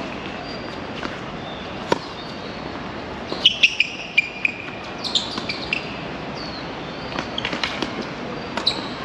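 Tennis ball being struck and bouncing: irregular sharp knocks, most of them bunched together in the middle, with short high chirping squeaks among them over a steady background hiss.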